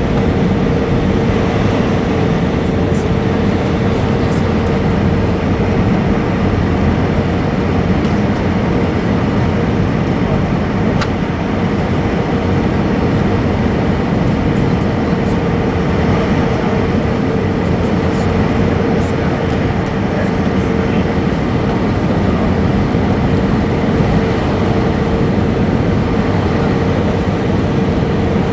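Steady cabin noise inside an Airbus A320 jet airliner: engine and airflow rumble with a constant hum running through it.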